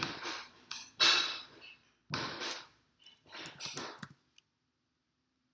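Several short hissy noise bursts, then a quick run of sharp clicks about four seconds in, after which the sound cuts off to silence.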